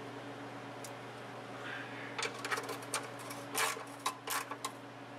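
Metal wrench clicking and clinking in irregular short bursts as the oil drain plug is tightened into the oil pan, starting about two seconds in.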